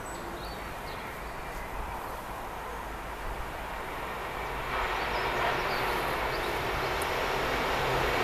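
Freight train approaching, led by a diesel locomotive whose engine and the train's rumble grow steadily louder from about five seconds in, with a few faint bird chirps.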